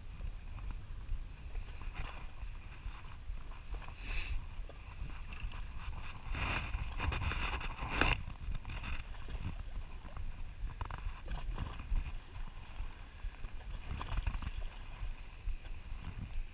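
Steady low rumble of wind on the microphone, with irregular knocks and clatter throughout. The clatter is densest in a short burst about four seconds in and a longer rattling spell a little past the middle.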